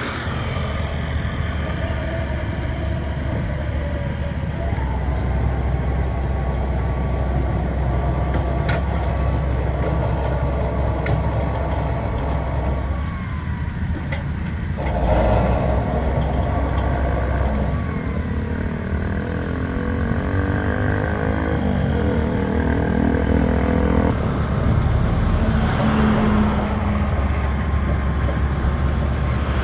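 Diesel engine of a heavy earthmoving machine running steadily under load, a deep continuous drone with faint tones that shift in pitch every few seconds.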